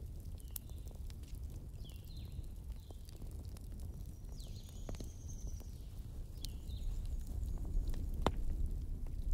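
Wood fire burning with a steady low rumble and sharp, irregular crackling pops, about five loud snaps, together with a few brief high squeaks.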